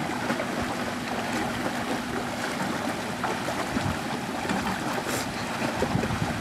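River water churning and splashing as the floating BMW E46's turning wheels paddle it, with the car's engine running in gear. A faint steady hum fades about halfway through.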